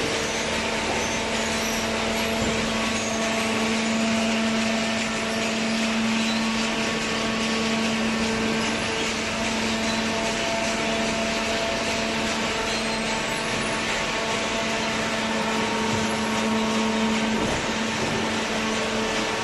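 Horizontal paper baler running steadily: a constant mechanical hum with a few fixed tones over a whirring hiss, holding the same level throughout.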